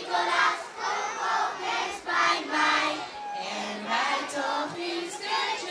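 A crowd of children singing a Sinterklaas song together, with held notes in short phrases.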